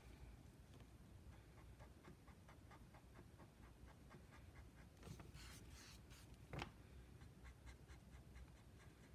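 Very faint scratching of a pen tip stroking over smooth Bristol paper, a soft stroke every fraction of a second, with one louder tap a little past halfway.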